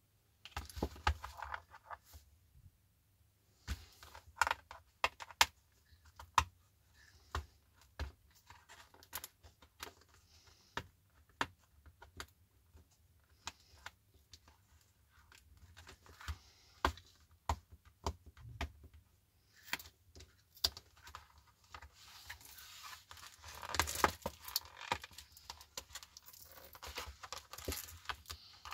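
Hands handling a cardboard product box on a wooden table: scattered taps, knocks and scrapes throughout, with a denser stretch of rustling and scraping a little after twenty seconds in.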